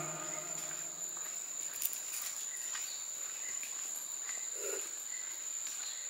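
Rainforest insects keeping up a steady, high-pitched one-tone drone, with a few faint clicks scattered through it. A low held note fades out in the first second and a half.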